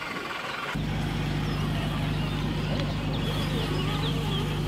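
A steady low engine-like hum with overtones starts abruptly about a second in, after a higher, thinner whine. Short bird chirps run over it.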